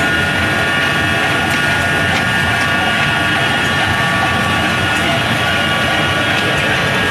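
Vertical ring die pellet mill running under load: a loud, steady machine noise with several steady high-pitched tones over it.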